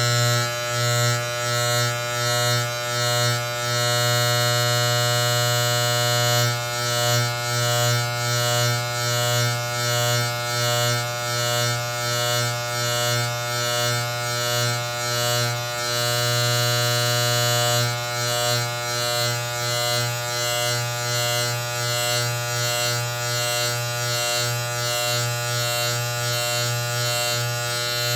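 Electric barber hair clippers running with a steady buzz, rising and falling regularly about one and a half times a second as they cut hair, steadier for a few seconds in a couple of stretches.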